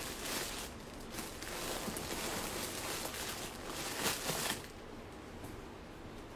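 Rustling handling noise, with a few soft crinkles. It stops about four and a half seconds in, leaving a faint steady hiss.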